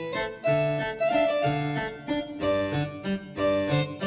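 Intro music: a bouncy tune of quick plucked notes on a harpsichord-like keyboard.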